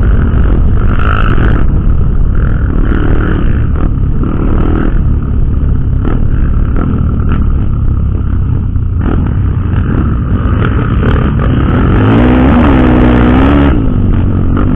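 A trail motorcycle engine runs over a heavy, steady low rumble. About twelve seconds in, the revs rise and fall for a second or so.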